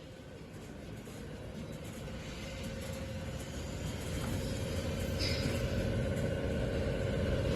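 Industrial woodworking planer sander machine running with a steady mechanical hum and a held mid-pitched tone, growing steadily louder.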